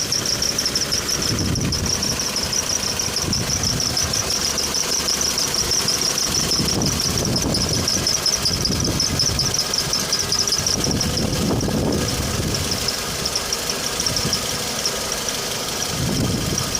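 Toyota Blade running in drive with a steady high-pitched squeak that pulses rapidly over the low running of the engine. It is the persistent squeak that a first attempted fix has not cured.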